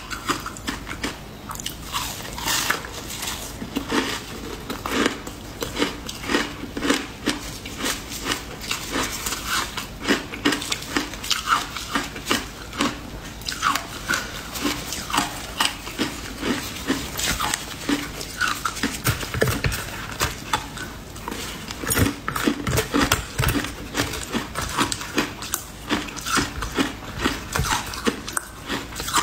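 Close-miked crunching and biting of shaved matcha ice, a steady stream of crackling bites and chewing.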